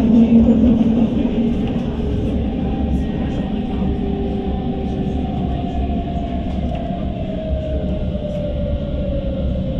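Tram running on its rails with a steady low rumble, and a motor whine that falls slowly in pitch through the second half as the tram slows.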